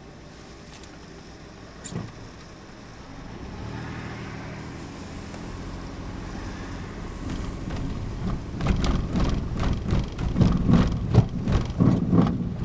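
A train approaching and passing through the station. Its rumble builds over several seconds. From about eight and a half seconds in, the wheels clatter rhythmically over the rail joints.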